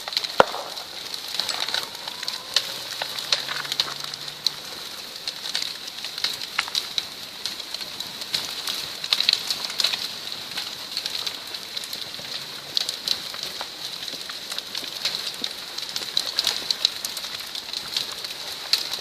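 Landslide of a mine spoil heap: dense, irregular cracking and snapping of rock and earth as the dump slides, over a steady high hiss.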